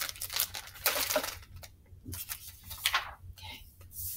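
Clear plastic bag of classroom supplies being handled and set down on a table: a string of short crinkling rustles with a few light knocks from the things inside.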